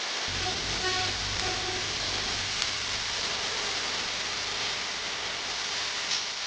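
Shrimp sizzling steadily in a hot pan as they stir-fry, with a low hum coming in just after the start.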